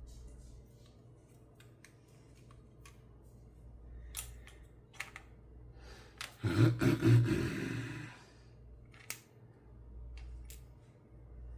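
Small metallic clicks and light scrapes of a key-in-knob lock cylinder and its small parts being handled during disassembly, with one louder noisy burst lasting about a second and a half about six seconds in.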